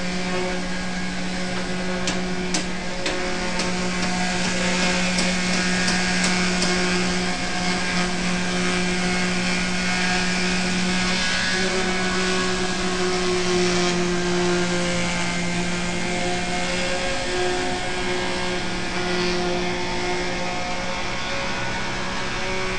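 Workshop power tool motor running steadily with a hum and a hiss, with a few light clicks in the first several seconds.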